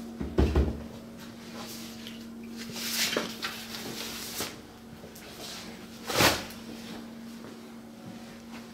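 A few knocks and bumps over a steady low hum: two heavy thumps near the start, a rustle about three seconds in, and a single sharp knock about six seconds in.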